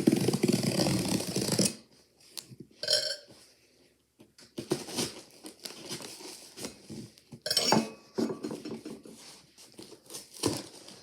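A cardboard box being cut and pulled open by hand: a loud scraping, tearing noise for the first second and a half, then scattered scrapes, clicks and knocks of cardboard being handled, with another short burst of scraping about seven and a half seconds in.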